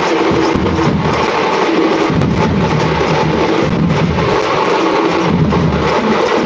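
A group of dhol players beating large barrel drums and smaller drums together in a loud, continuous, driving rhythm.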